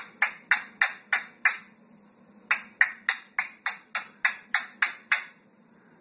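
African grey parrot making sharp, evenly spaced clicking sounds, about three a second, in two runs with a pause of about a second between them.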